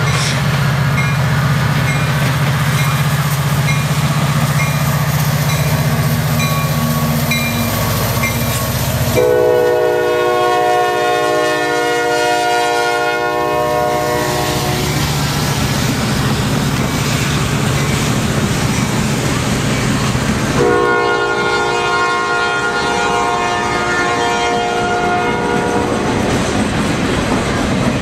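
Norfolk Southern freight train passing: a steady low diesel locomotive drone with a regular ticking, then the locomotive's multi-chime air horn sounding two long blasts, the first about nine seconds in lasting roughly six seconds, the second starting about twenty-one seconds in.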